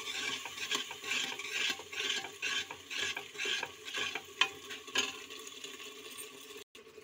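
A ladle is stirring garlic-onion paste frying in hot oil in a pressure cooker pot. There is a sizzle and about two scraping strokes a second, with sharp clicks of the ladle against the pot's side. The stirring eases off near the end.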